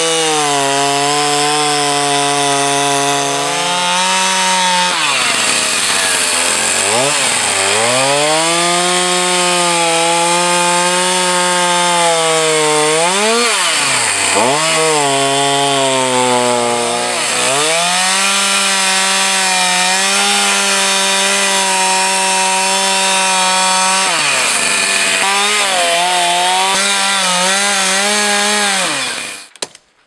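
Two-stroke chainsaw cutting into the end grain of a spruce log to hollow it out, the engine held at high revs under load. The revs dip and pick up again several times as the bar works in the cut, and the sound cuts off near the end.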